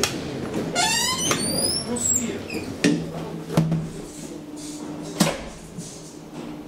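Thyssen traction elevator's car doors closing: a short rising squeak and a string of sharp clicks and knocks from the door gear, then a steady low hum from about four seconds in.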